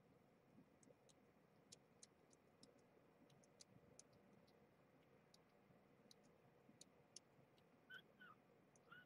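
Near silence with faint, irregular clicks, about two a second, from a young kitten suckling formula from a small feeding bottle. Two short faint squeaks come near the end.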